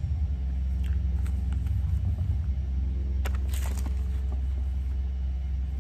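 Steady low rumble with a few faint clicks about a second in and again past the middle.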